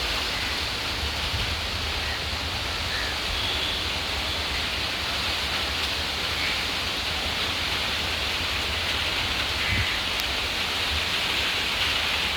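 Steady rain falling: an even hiss of drops with a low rumble underneath.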